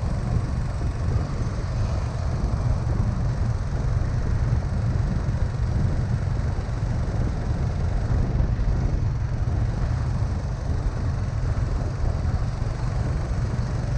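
Steady low rumble and road noise from a moving vehicle, unbroken throughout.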